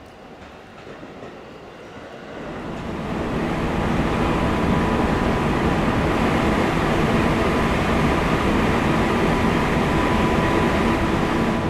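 A train passing on the line: the rumble of wheels on rail builds over a few seconds, holds loud and steady with a thin steady tone over it, and starts to fade near the end.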